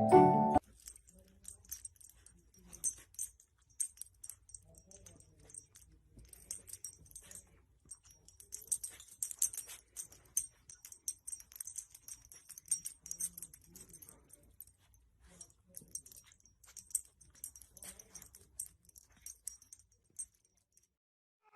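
Dog's collar tags jingling in quick, irregular bursts with light clicks as the dog moves, stopping about a second before the end.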